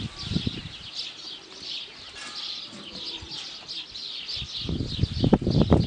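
Many small birds chirping steadily in a busy chorus. A brief low thud comes about half a second in, and a louder run of low thuds and scuffs follows near the end.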